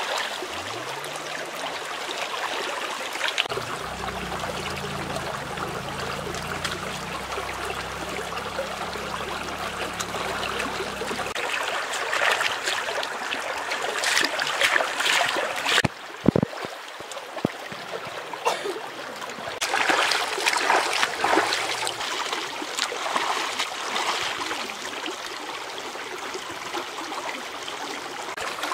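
Shallow stream running steadily, with hands splashing in the water as fish are washed; the splashing is loudest about halfway through and again a few seconds later.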